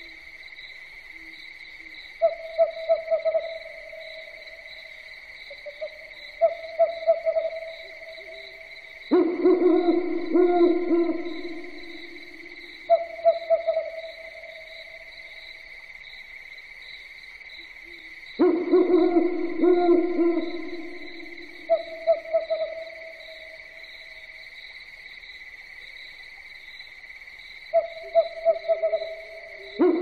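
Owls hooting at night: short quavering hoots every few seconds, with longer, louder, lower calls about 9 and 18 seconds in and again near the end. A steady high insect trill runs underneath.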